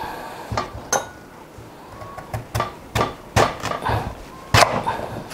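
Kitchen knife and daikon radish slices knocking on a wooden cutting board as the radish is cut and peeled: about nine sharp, irregular knocks, the loudest near the end.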